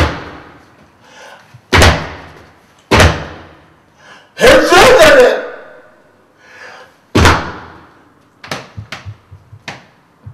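Tourette tics: four sudden loud thuds, each echoing off the room's walls, and a short, loud yelled vocal tic in the middle, then a flurry of smaller quick knocks near the end.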